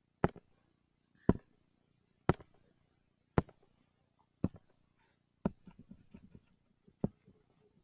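Sharp clicks on a laptop while a colour is picked in a drawing app, about one a second. About five and a half seconds in, they give way to a quicker run of lighter clicks.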